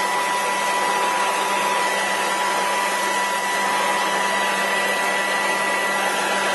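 Black+Decker LSWV36 40V cordless sweeper/vac running in sweeper (blower) mode: a steady electric-motor fan whine with a high tone over rushing air, blowing debris across a concrete path.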